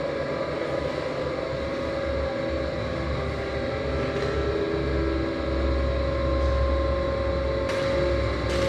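Dark ambient background music: a steady low drone under held tones, with the low end swelling about five seconds in.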